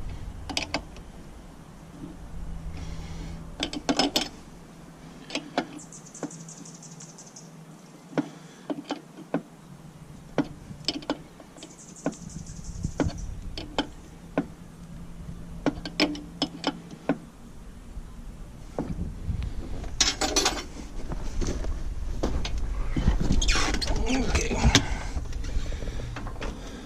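Hand tools and metal parts being handled while hydraulic hose fittings are tightened: scattered sharp clinks and knocks, two short runs of fast high ticking, and a denser stretch of clattering handling noise near the end.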